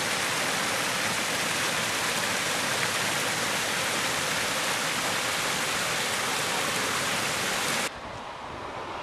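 Small waterfall rushing down a rocky stream bed, a loud even splashing hiss. It cuts off suddenly about eight seconds in, leaving a quieter rushing noise.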